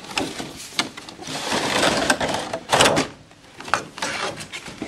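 Clear plastic shrink-wrap crinkling and tearing as it is pulled off a cardboard toy box, then the cardboard box being handled, in uneven crackly bursts with a few sharp clicks, loudest about three seconds in.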